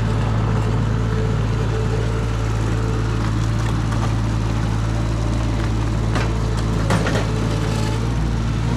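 Mini skid steer engine running steadily at high revs, with a couple of sharp knocks about six and seven seconds in.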